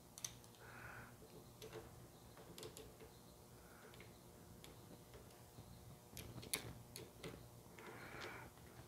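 Faint, irregular light metallic clicks of a hex key turning small socket-head bolts into a bracket plate by hand.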